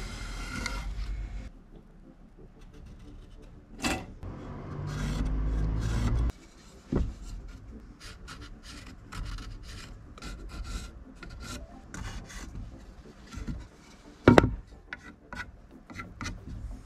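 Pencil scratching marking lines on a length of softwood 3x2 timber in short strokes, with rubbing and a few sharp wooden knocks, the loudest about fourteen seconds in.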